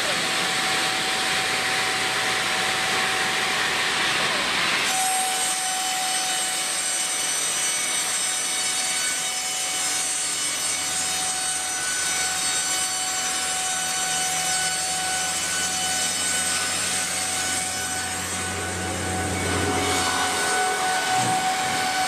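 Industrial log-sawing machinery running and cutting through logs. A steady hissing saw noise changes abruptly about five seconds in to another machine's steady run with a constant whine, and a low hum joins from about ten seconds in.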